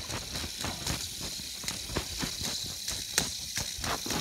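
Light-up fidget spinner spun and handled close to the microphone: a steady high hiss with irregular clicks and taps.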